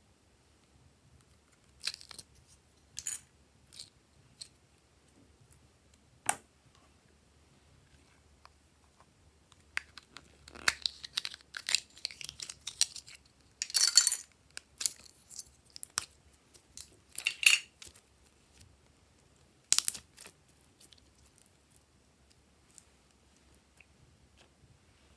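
A small plastic container handled and opened with a few sharp clicks, then soft clay squeezed and pulled out of it with bursts of crackling, loudest around the middle.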